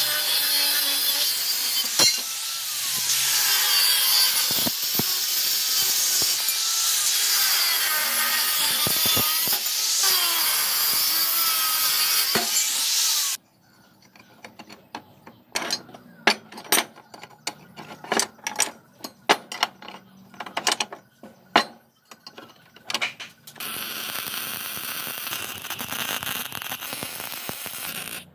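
Angle grinder cutting through steel square tube, its pitch sagging and recovering as the disc bites, for about the first half. Then scattered light clinks and knocks of steel pieces handled on a workbench, and in the last few seconds the steady crackling hiss of MIG welding.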